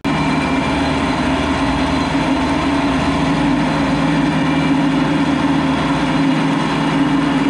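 Kioti RX7320 tractor's diesel engine running steadily under load while pulling a disc-chisel plow through the field, heard close up from beside the front wheel.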